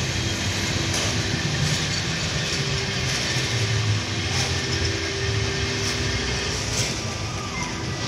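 Steady rumble and hiss of theme-park ride machinery.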